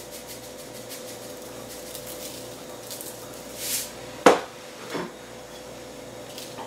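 A brief rustling hiss, then a sharp knock as a spice can is set down on the countertop, and a softer knock just after. A faint steady hum runs underneath.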